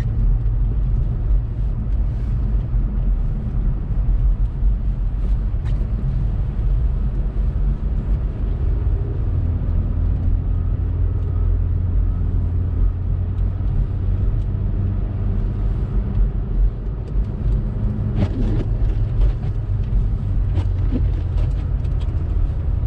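2018 Honda Civic Sport hatchback driving on snowy streets: a steady low rumble of its 1.5-litre turbo four-cylinder and tyres on the road. A faint steady engine tone comes in about a third of the way through, and there are a few sharp knocks near the end.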